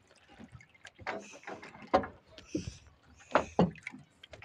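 Small boat on the water: irregular splashes, knocks and bumps against the hull as a pole is worked alongside.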